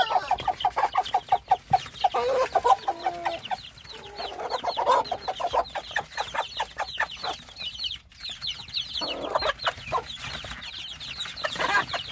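Korean native hen clucking in quick runs among her chicks, with the chicks' many short, high, falling peeps, thickest in the middle of the stretch.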